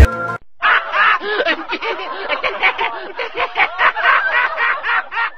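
Music cuts off at the start. After a brief pause comes high-pitched laughing, a fast string of short rising-and-falling calls that runs on through the rest.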